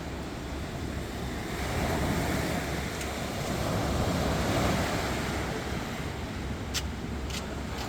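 Sea waves washing in, with wind on the microphone; a wave swells up about two seconds in and dies back down. Two brief clicks near the end.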